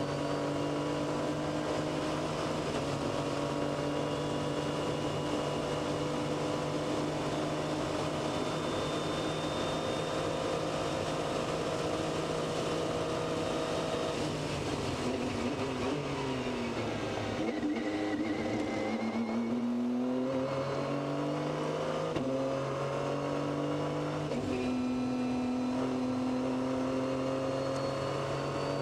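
Onboard sound of an LMP2 prototype race car's engine: a steady high note at speed for about the first half, then the pitch drops as the car slows, then it climbs again through several quick gear changes as the car accelerates away.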